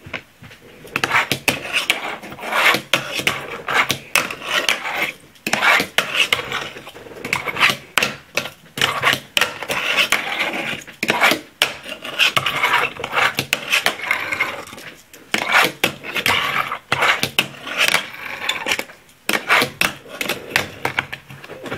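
Swag Decks wooden fingerboard being ridden on a wooden tabletop and wooden ledge: a string of sharp clacks as the board pops and lands, with wheel rolling and scraping in between.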